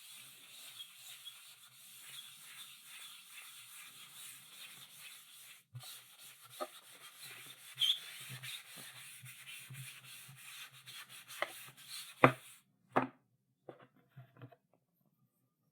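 Chalk scratching across a blackboard in continuous writing strokes, with a few sharp taps of the chalk against the board near the end before it stops.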